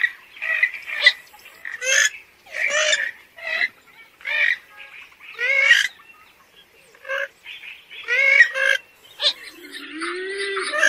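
Calls of a purple gallinule-group rail (genus Porphyrio), the bird known in Bengali as kalim: a run of short, loud calls about half a second to a second apart, each a quick bending note, with a brief pause about two-thirds of the way through. Near the end a different, continuous warbling sound with a low sliding tone starts.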